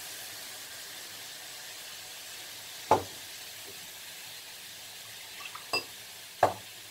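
Butter-and-flour roux with freshly added cream sizzling steadily in a hot frying pan. Three sharp clicks cut through it, one about three seconds in and two near the end.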